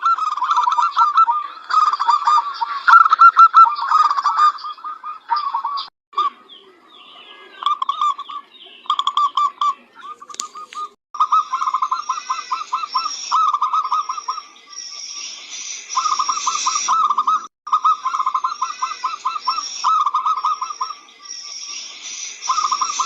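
Zebra dove (perkutut) cooing: phrases of rapid, evenly repeated notes, some long and some short, with brief pauses between them. Fainter high chirping from other birds runs under much of the second half.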